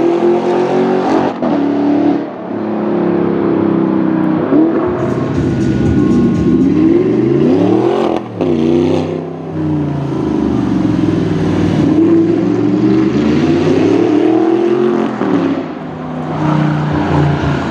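Audi R8 with an aftermarket Larini exhaust, accelerating hard several times, its engine note climbing through the revs and falling back between pulls. About eight seconds in it passes by and the pitch drops.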